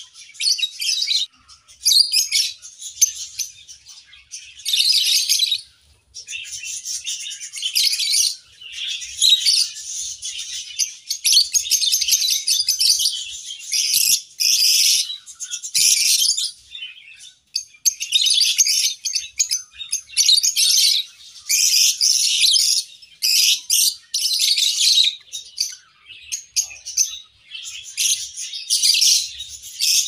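A flock of lovebirds, mostly Fischer's lovebirds, chattering with shrill, high, overlapping chirps. The chirping comes in loud stretches of a second or two with brief lulls between them.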